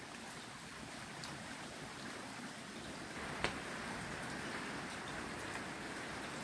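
Steady rain falling, an even hiss, with one sharp tap about three and a half seconds in.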